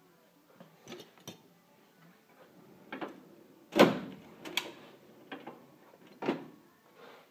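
Hand tools knocking and clinking against each other and a tool cabinet drawer as they are handled: a string of separate knocks, the loudest about four seconds in.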